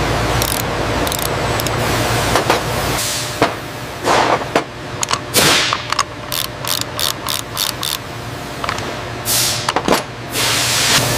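Metallic clicks and taps of a hand tool working on an AR-15-style rifle, with a quick run of clicks in the middle and a few short hissing sweeps between. A steady low machine hum underneath drops away after about two and a half seconds.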